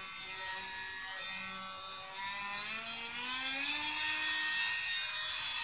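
Fein AMM 300 Plus 12 V cordless oscillating multi-tool running free, with a steady motor whine at a low speed setting. About two seconds in the whine rises in pitch and grows louder as the tool speeds up.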